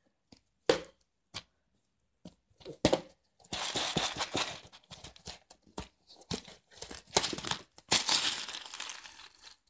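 A few sharp plastic clicks as the snap-on lid of a plastic food container is unclipped and pulled open. Then a gloved hand rustles and crunches through dry seed mix in the box, a dense crackling with louder stretches about a third of the way in and near the end.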